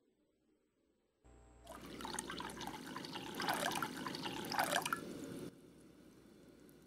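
Water poured from a measuring cup into a ceramic clay pot, splashing for about four seconds before cutting off abruptly.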